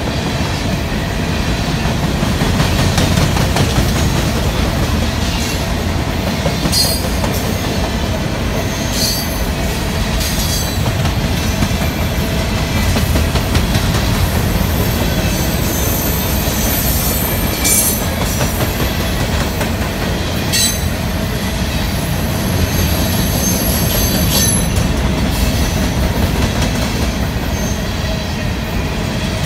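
Freight train's covered hopper cars rolling past close by: a steady rumble of steel wheels on the rails, with sharp clanks several times and thin high wheel squeals now and then.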